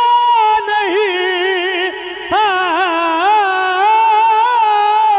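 A man singing a Punjabi naat, drawing out long held notes with wavering melismatic ornaments. There is a short break about two seconds in before the next phrase.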